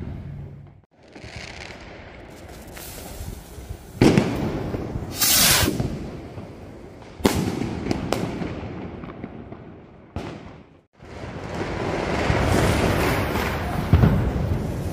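Firecrackers and fireworks going off: several sharp bangs, with hissing and crackling between them.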